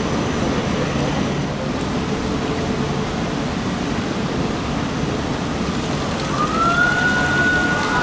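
Steady hum and rush from two coupled E4 series Max Shinkansen trains standing at the platform while their nose coupler covers open for uncoupling. About six seconds in, a high tone slides up and then holds steady.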